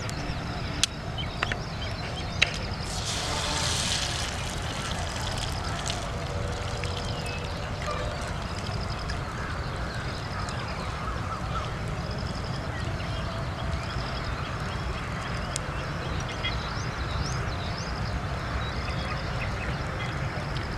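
Eggs frying on a black iron griddle over a wood fire: a couple of sharp taps as an egg is cracked, then a louder sizzle about three seconds in as it meets the hot pan. Under it, a steady low rumble and repeated short bird chirps.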